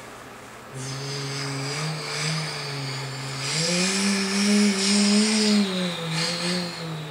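A man's voice imitating a truck engine with his mouth: a continuous engine-like hum starting about a second in, rising in pitch through the middle and falling again near the end.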